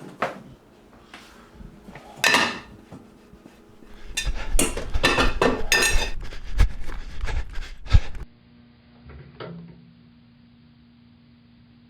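Dishes and cutlery clattering: a few scattered clinks, then a busy run of plates and forks knocking and scraping that ends on one loud clink and cuts off suddenly. A quiet, steady low hum follows.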